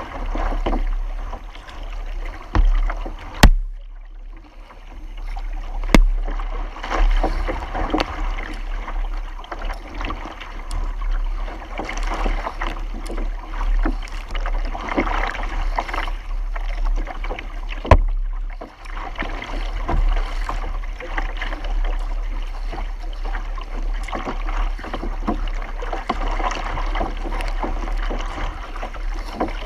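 Water rushing and splashing along the hull of a sea kayak under sail, with a steady low rumble and a few sharp knocks.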